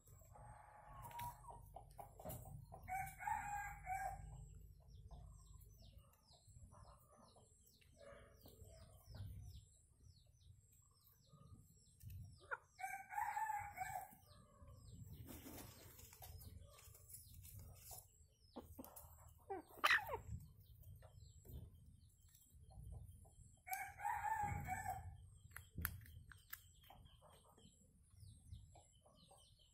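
Red junglefowl rooster crowing three times, about ten seconds apart, with softer clucks between. A brief sharp sound, the loudest in the stretch, comes about twenty seconds in.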